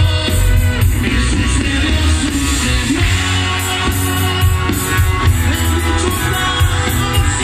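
A live grupero band playing loud through a PA: electric guitar and drums over a heavy, steady bass.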